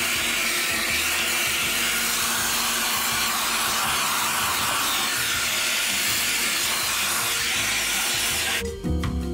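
Vacuum cleaner running steadily with a round dusting-brush attachment, sucking dead insects and cobwebs out of a fiber-optic box. The steady rushing cuts off abruptly near the end, where music begins.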